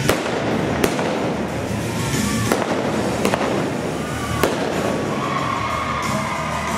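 .45 caliber revolver fired with black-powder blanks: about six sharp shots at uneven intervals over the first four and a half seconds, the first two the loudest.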